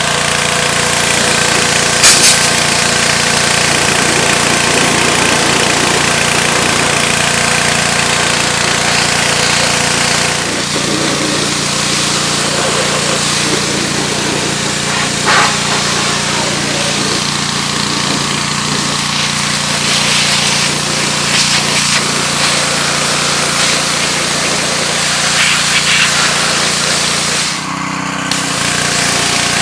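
Simpson 3400 PSI gas pressure washer running steadily on its newly fitted replacement pump, the small engine's hum under a steady hiss, with a brief drop in level near the end.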